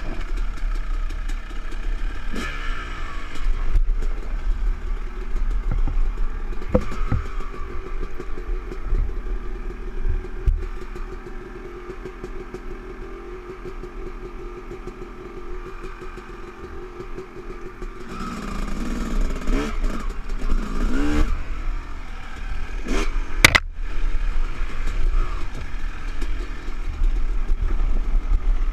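Yamaha YZ250 two-stroke dirt bike engine running on a trail, revving up and easing off with the throttle. It settles to a quieter, steadier note for several seconds midway and then revs up again. A single sharp clack about 23 seconds in is the loudest sound.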